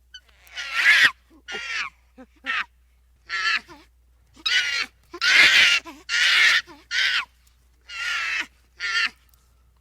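A bird's harsh, raspy calls, about ten in a row at uneven intervals, some short and some longer.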